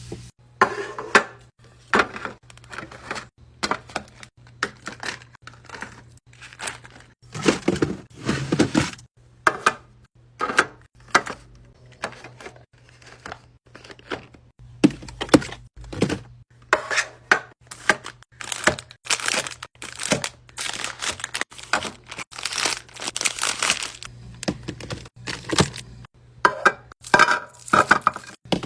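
Fridge-restocking handling sounds: plastic food packaging crinkling and tearing, among many sharp clacks and knocks as containers and items are set down, in quick irregular succession. The longest bouts of crinkling come about a third of the way in and again past the three-quarter mark.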